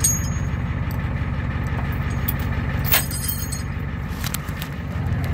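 Tow truck engine idling with a steady low throb, with a sharp metal clink from the tow hook and chain at the start and again about three seconds in.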